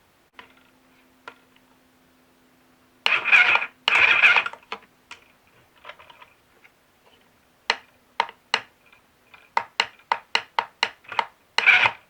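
Cheap mini sewing machine stitching: a faint motor hum, two short loud bursts of running about three and four seconds in, then a string of sharp clicks at about three a second and another loud burst near the end. The machine is struggling to feed even thin fabric.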